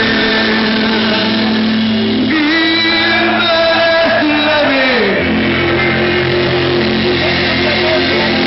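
Live rock band playing loud, with bass, guitar and drums under a singer's voice, heard from the crowd in front of the stage. Held notes give way about five seconds in to a long downward slide in pitch.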